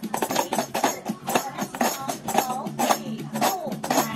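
A group of small hand tambourines struck with mallets, their jingles rattling on each beat, playing several strikes a second along with recorded music.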